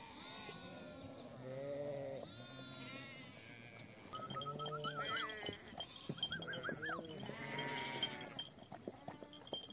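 A flock of sheep bleating, many overlapping calls, some low and some high and wavering from young animals. A light jingling of livestock bells joins about four seconds in.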